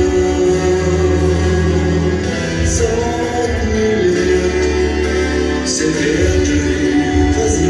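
A slow song playing: long-held chords with singing, and a few short, crisp high hits.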